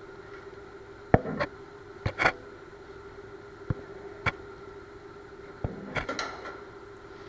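Sharp metallic clicks and clanks at irregular intervals, about nine of them, from locking-pliers clamps being worked against the steel windshield channel of a 1955 Ford F100 cab. The loudest falls a little over a second in, and a steady hum runs underneath.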